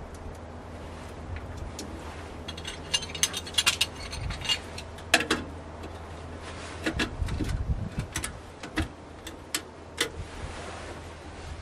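Small stainless steel pot being handled on a stove top: its lid and wire bail handle clink and rattle in scattered sharp metal clicks, busiest through the middle.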